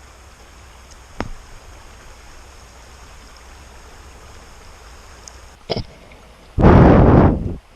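River water flowing steadily over shallows, with two sharp knocks and, near the end, a loud rush of noise about a second long that cuts off suddenly.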